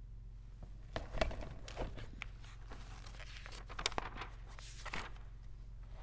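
Paper pages of a service book rustling and being handled and turned, in scattered short crinkles and small clicks over a steady low hum.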